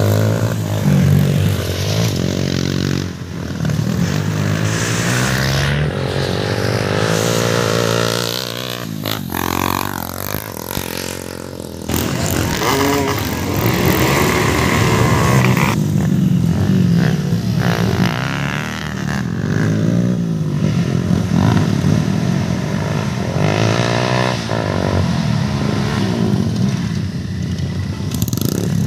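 Dirt bike engines running on a motocross track, revving up and easing off so the pitch rises and falls repeatedly, with a brief lull about twelve seconds in before they pick up again.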